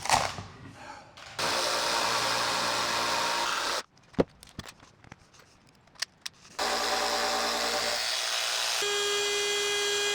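Power tool motor running in two spells: a steady whine for a couple of seconds, a pause with a few clicks and knocks, then running again about two-thirds of the way in with a strong steady whine.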